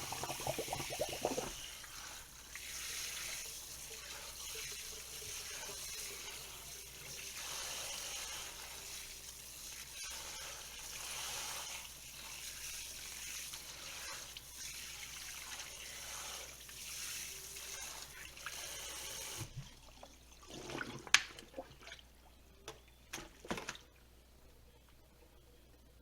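Water running from a tap into a sink, shutting off suddenly about three quarters of the way through. A few sharp knocks and clatters follow, one clack louder than the rest.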